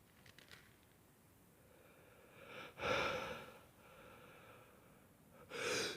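A man's breathing: one breath about halfway through and a second near the end, the drawn-in build-up to a sneeze.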